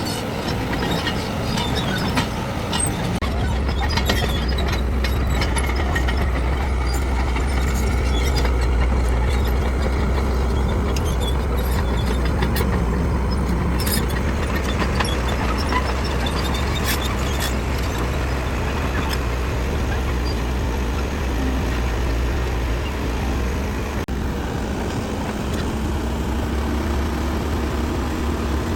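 Heavy diesel construction machinery running: a steady, deep engine drone that settles in about three seconds in, with scattered metallic knocks and clanks over it.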